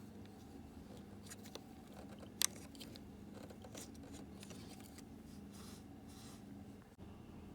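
Faint clicks and short scraping sounds of small parts or tools being handled, with one sharper click about two and a half seconds in, over a steady low hum.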